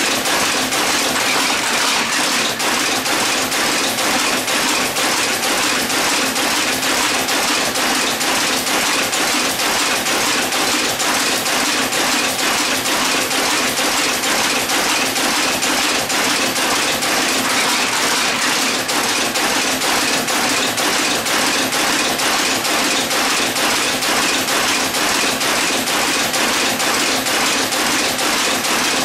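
A metal type-casting machine running, a loud, steady, fast clatter of many small mechanical clicks.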